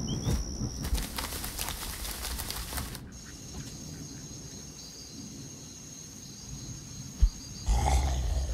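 Night ambience with a steady high insect chirring. A rustling stretch fills the first few seconds. A single low thump comes about seven seconds in, then a louder scuffle near the end.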